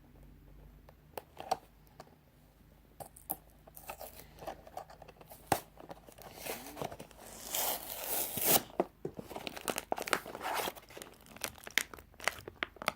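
Toy packaging being torn open and crinkled by hand: scattered clicks and rustles, with a longer, louder tearing stretch about eight seconds in.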